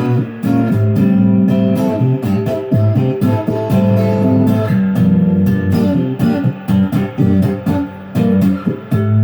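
Stratocaster electric guitar on a two-pickup in-between setting, the quacky Strat tone, played through an amp with a Sonicake Blue Screamer overdrive pedal on in normal mode. A phrase of picked notes with several brief stops.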